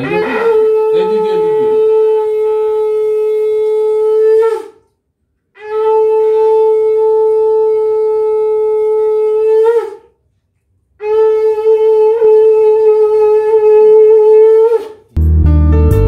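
Conch shell (shankha) blown in three long, steady blasts of about four and a half seconds each, with a short silence between them and a slight upward bend at the end of each blast. Music comes in near the end.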